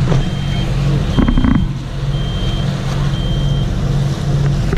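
Marine chart plotter's electronic alarm beeping four times, each beep about half a second long and about a second apart: the alarm of navigation electronics that have lost their GPS fix. Underneath runs the steady drone of the catamaran's engine, with a short thump about a second in.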